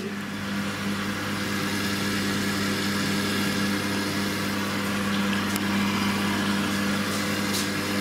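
Indesit front-loading washing machine filling: water rushing steadily into the drum over a constant electrical hum, with a couple of faint ticks.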